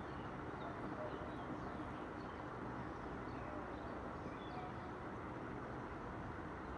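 Scattered short bird chirps over a steady low noise.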